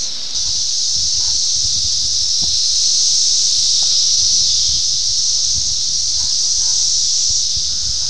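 Chorus of Brood X periodical (17-year) cicadas: a steady, loud, high-pitched buzz that gets louder about a third of a second in.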